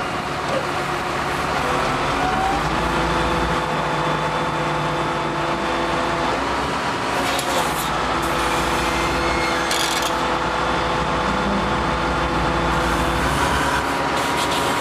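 Pile-driving rig's diesel engine running steadily under hydraulic load, its pitch stepping up and down a couple of times while it hoists a precast concrete pile section. Two short hissing bursts come about halfway through.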